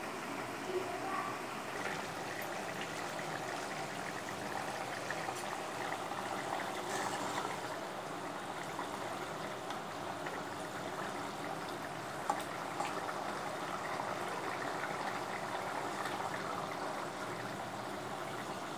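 Chayote kurma gravy boiling in a steel pan, a steady bubbling simmer as the vegetable cooks, with one light click about twelve seconds in.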